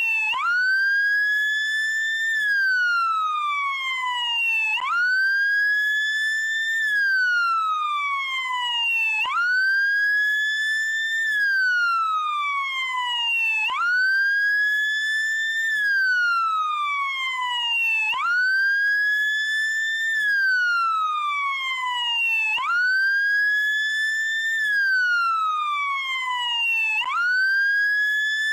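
Police car siren on the wail setting: a tone that climbs quickly, holds briefly near the top, then slides slowly back down, repeating about every four and a half seconds.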